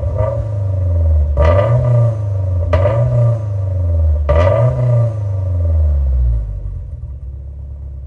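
Subaru STI's turbocharged flat-four boxer engine revved in several short blips, then settling back to idle about six seconds in. It breathes through a muffler that has been cut open, emptied of its packing and welded shut to make it louder.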